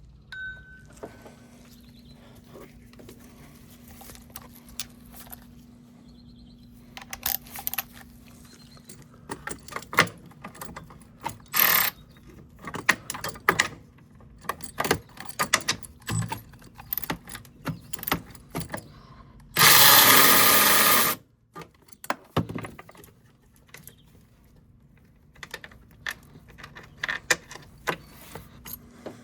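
Hand tools clinking and clicking: a ratchet and socket working on battery tray bolts, in scattered sharp metal taps and rattles. About twenty seconds in comes one loud, even burst of noise lasting about a second and a half.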